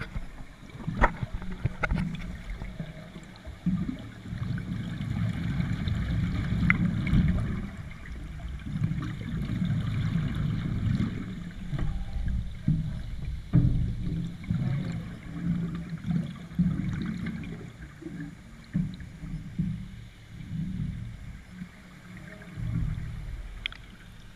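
Scuba diver breathing through a regulator underwater, heard through a GoPro's waterproof housing: exhaled bubbles rumble and gurgle in swells every few seconds, between the hiss of each breath in.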